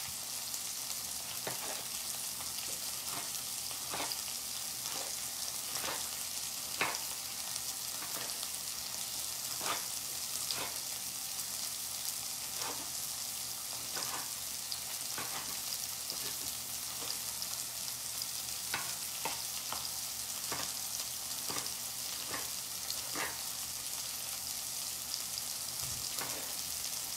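Garlic and bell peppers sizzling steadily in a frying pan, with a kitchen knife knocking irregularly on a cutting board as tomatoes are chopped, about once or twice a second.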